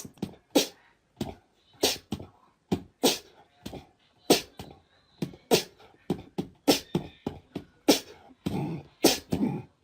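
A rhythmic percussive beat: sharp hits a little under two a second, evenly spaced.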